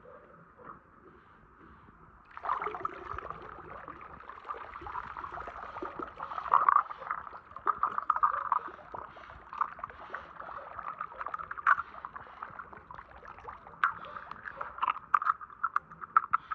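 Water sloshing and dripping as a pool skimmer net is lifted out of a swimming pool, starting abruptly about two seconds in. Small die-cast toy cars click against each other and the net's frame as they are handled, with the clicks coming thicker near the end.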